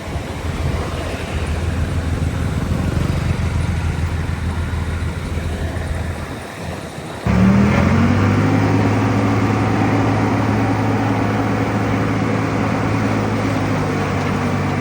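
Heavy diesel engines of earthmoving machinery running under load. About halfway through the sound changes abruptly to a different engine, which revs up briefly and then runs at a steady pitch.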